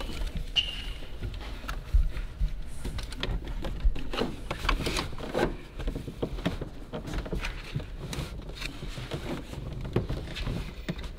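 Seatbelt webbing being pulled through a plastic infant car-seat base and the base pressed down and shifted on the seat: an irregular run of rustles, clicks and light knocks.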